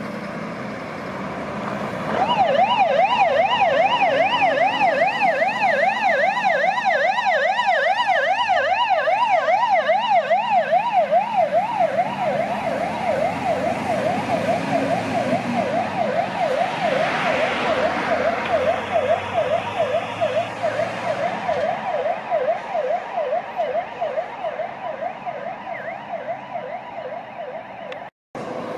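Fire engine's electronic siren in a fast yelp, sweeping up and down about four times a second. It switches on about two seconds in and slowly fades as the truck drives away. Before the siren starts, the truck's engine is heard running.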